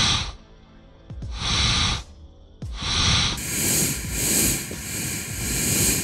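Pressurised nitrogen hissing out of a hairline crack in a copper refrigerant discharge line, coming and going as the line is flexed: a short burst about a second in, another near three seconds, then a long steady hiss to the end. Pushing the line one way almost stops the leak.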